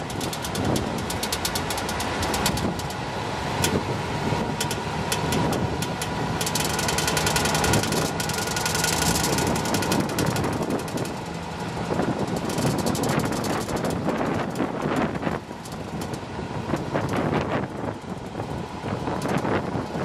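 1996 Chevy K1500 pickup running with a rapid, irregular clicking from the underside around the transfer case, which the owner suspects as the source; the U-joints are solid with no play.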